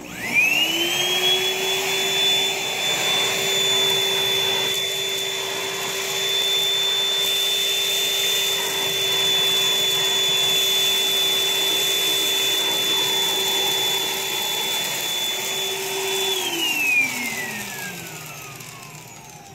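Oreck Iron Man vacuum switched on, its motor whine rising quickly to a steady high pitch as it sucks sawdust through a 3D-printed cyclone separator into a plastic bottle. About sixteen seconds in it is switched off, and the whine falls in pitch as the motor spins down.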